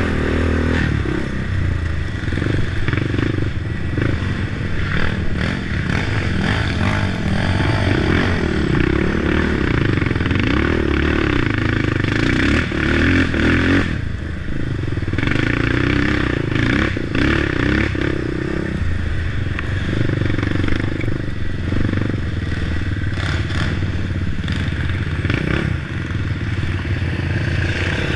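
Crate late model race car's V8 engine running hard at racing speed, its revs rising and falling, with brief dips a couple of times. Constant rattling and knocking run under the engine note.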